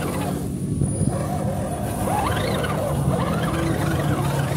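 A 1/10-scale RGT RC crawler's small electric motor and gears whining as it churns through loose sand, the pitch rising and falling a few times with the throttle.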